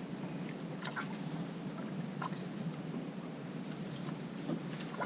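Steady low wash of wind and water around a small fishing boat at sea, with a few faint clicks.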